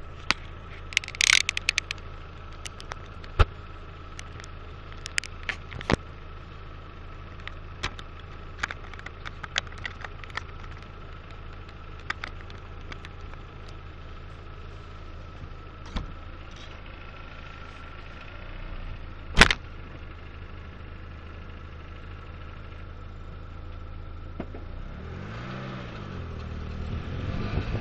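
Citroen C5 creeping along a rutted dirt track on its Hydractive suspension with old, worn spheres: a steady low engine hum and a faint steady whine, broken by scattered clicks and knocks from the wheels and suspension over the bumps, with one loud knock about two-thirds of the way through. Near the end, wind on the microphone builds as the car picks up speed.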